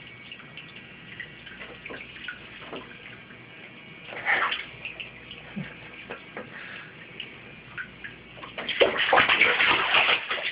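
Bathwater splashing: a baby's hand slapping and splashing the water in a tub, with small splashes and drips at first and a short splash about four seconds in, then loud, continuous splashing in the last two seconds.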